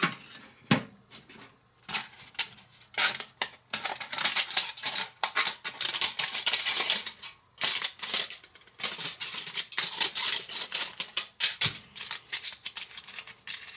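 Aluminium foil crinkling and crackling in irregular bursts as it is crumpled and pressed into small metal baking pans.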